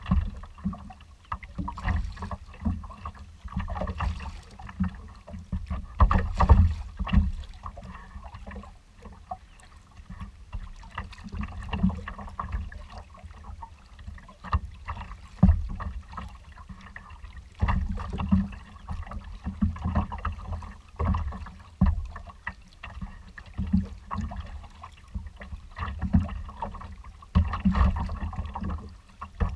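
Choppy water slapping and splashing against a kayak's hull as it moves across the bay, in irregular surges.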